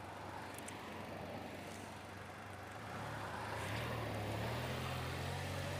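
Vehicle engine and road noise while driving, the engine pitch rising and getting louder about three seconds in as it speeds up.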